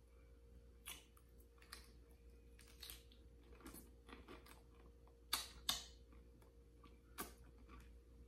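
Faint chewing and wet lip smacking while eating a taco and licking fingers: scattered short sharp mouth clicks, with two louder smacks in quick succession about five and a half seconds in.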